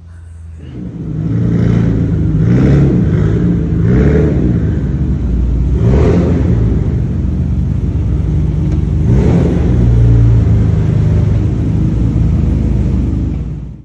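Nissan Skyline GT-R's RB26DETT twin-turbo straight-six running and being revved several times, each rev rising and falling back.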